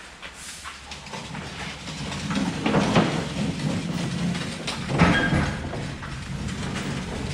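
A loaded metal bakery rack trolley rumbles over the floor as it is pushed into a rotary rack oven, its stacked trays rattling, with louder clanks about three and five seconds in.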